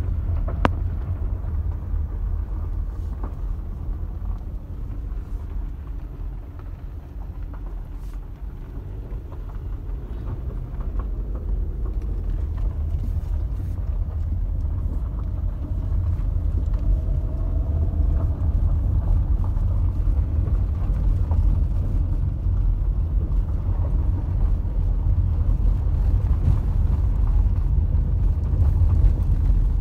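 Car cabin road noise while driving on a gravel road: a steady low rumble of tyres and engine, easing off for a few seconds and then building again. A single sharp knock is heard about half a second in.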